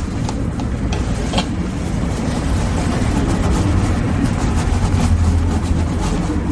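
A steady low mechanical rumble with a hum, like a motor running.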